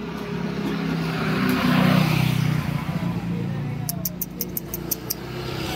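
A motor vehicle passing by, its engine growing louder to a peak about two seconds in and then fading away. Near the end comes a quick run of sharp high ticks, about six a second.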